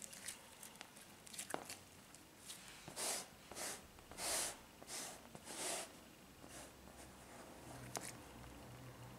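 Store-bought slime mixed with old makeup being kneaded and pressed by hand, with a run of about five short wet squelches a little after the middle and softer sticky clicks around them.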